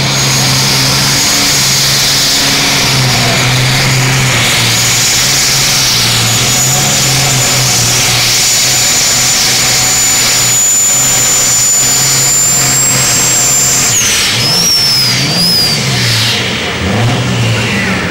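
Modified-class pulling tractor's engine at full power, dragging the weight sled down the track, with a high steady whine over the engine note. About fourteen seconds in the revs drop and waver up and down as the tractor bogs down and the pull comes to a stop.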